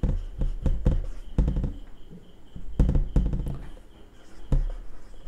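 Marker pen writing on a whiteboard: irregular short taps and strokes, several landing with a low knock against the board.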